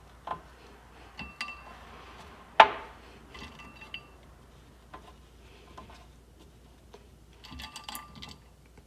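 Ice cubes clinking against each other and a ceramic bowl as a hand picks them out, in scattered clicks, with one sharper knock about two and a half seconds in and a quick run of clinks near the end.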